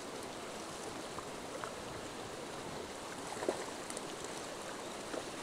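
Steady rush of flowing water, with a few faint ticks and clicks over it.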